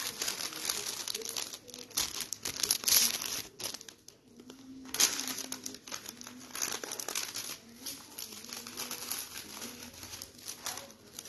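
Irregular crinkling and rustling close to the microphone.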